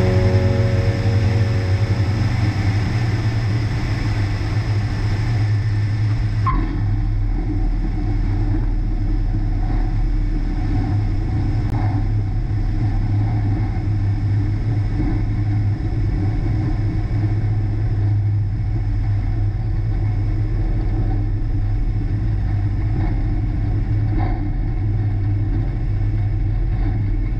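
Piper Archer II's four-cylinder Lycoming engine running steadily, a low drone heard from inside the cabin.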